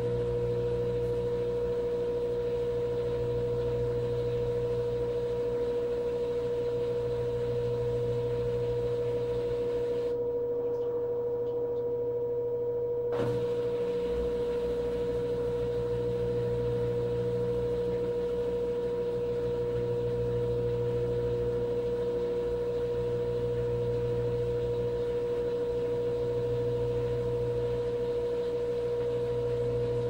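Electrolux LFE14 front-loading washing machine in its final high-speed spin: a steady high motor whine over a low hum that swells and fades every few seconds. A single brief click partway through.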